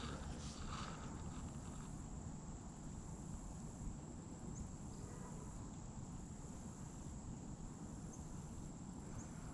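Insects, crickets or katydids, trilling steadily as one continuous high thin note, over a low outdoor rumble.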